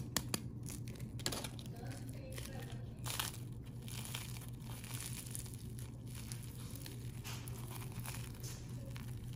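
Crisp rice-flour batter of a fried banana fritter crackling and crunching as fingers press and break it open: a scatter of small sharp crackles, a sign the batter has fried crisp. A steady low hum runs underneath.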